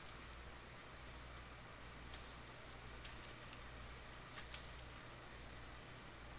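Quiet room with a steady low hum, and a few faint soft clicks and rustles between about two and five seconds in.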